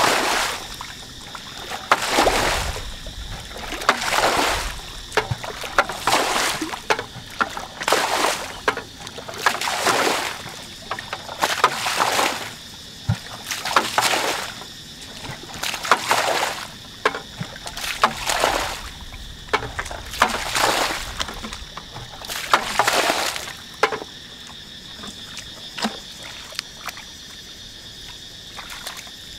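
Muddy water flung out of a bucket in heavy splashes, about one every two seconds, as a shallow paddy pool is bailed out to get at the fish. The splashing stops a few seconds before the end.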